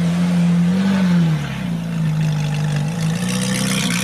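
Ferrari 458 Italia's V8 engine running at low revs as the car pulls away slowly, with a short rise in revs just before a second in that falls back, then small shifts in pitch.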